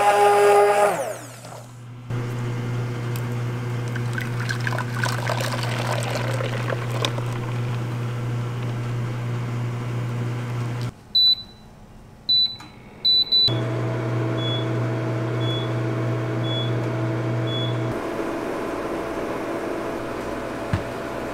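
Immersion blender whining and winding down to a stop about a second in, followed by the steady electrical hum of an induction cooktop heating a pot of milk. Around the middle, a few high electronic beeps from the cooktop controls, then a short beep about once a second for several seconds.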